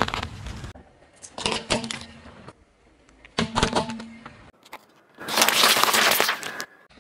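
A car tyre crushing objects in a string of short takes: crackling and snapping as small coloured balls and thin white plastic cups break under it, in a few separate bursts, then a longer, louder crunch near the end as the tyre flattens a leafy vegetable.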